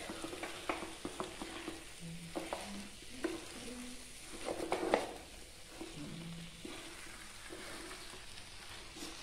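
Wooden spatula stirring and scraping coconut-coated vegetables in a nonstick pan, with scattered clicks of the spatula against the pan over a faint sizzle from the heat.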